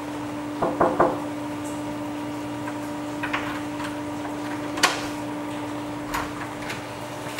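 A few short knocks and clicks from a wooden door and its handle being handled: a cluster about a second in, then single ones, the sharpest near the middle. A steady low hum runs underneath.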